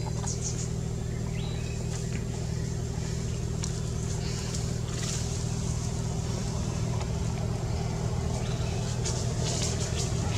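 A motor running steadily nearby: an even, low engine hum that holds the same level throughout, with a few brief faint high rustles over it.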